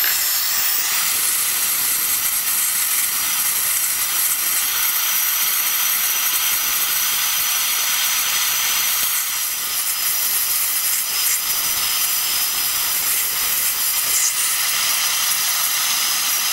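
MAPP gas hand torch burning with a steady hiss.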